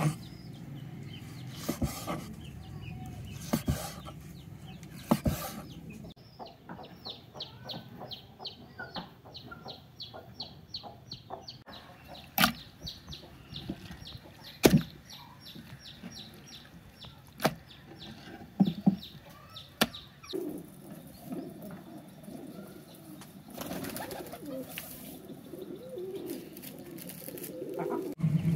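A knife knocking against a wooden chopping board as beef liver is sliced, sharp single knocks every second or two. Birds are heard over it: a rapid run of high chirps for several seconds, and pigeons in the yard.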